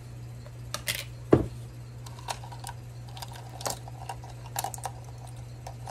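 Small clicks and clinks of a set of measuring spoons being handled and separated on their ring, with one heavier thump about a second and a half in, over a steady low hum.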